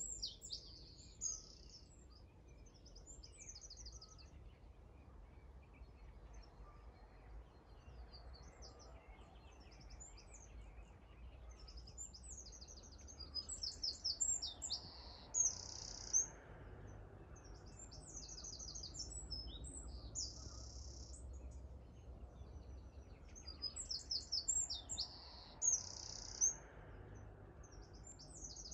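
Small songbirds singing in short, high phrases of fast trills and rapidly repeated notes, busiest about halfway through and again near the end, over a faint low background rumble.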